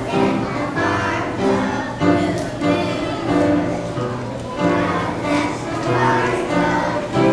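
A kindergarten class of young children singing a song together, with musical accompaniment, in a large echoing room.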